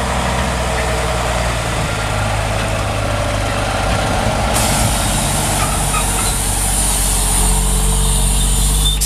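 Diesel semi truck pulling two end-dump trailers, its engine running steadily at low speed as it rolls slowly past close by. A steady hiss joins in about halfway through, and the engine grows louder near the end as the tractor comes closest.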